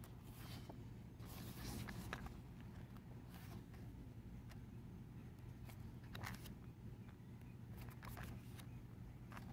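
Pages of a photobook being turned by hand: faint paper rustles and page flaps in several short bursts, over a steady low background hum.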